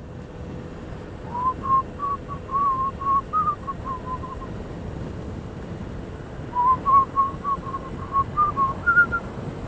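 A person whistling a tune in two short phrases of quick notes, the second ending a little higher, over a steady low background rumble.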